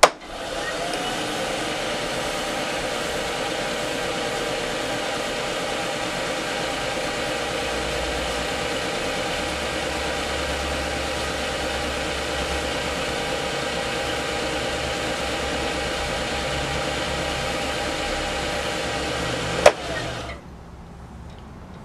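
Wood lathe spinning a wood ring on a pen mandrel while a paper towel is pressed against it to rub in friction polish: a steady rubbing hiss over the motor's whine. Near the end there is a sharp click, then the rubbing stops and only a faint low hum remains.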